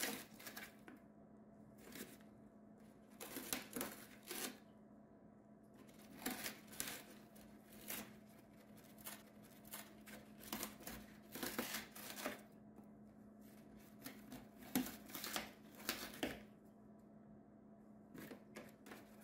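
White cockatoo rustling through and tearing at shredded cardboard in a box, in irregular bursts of crackling and ripping with short pauses between.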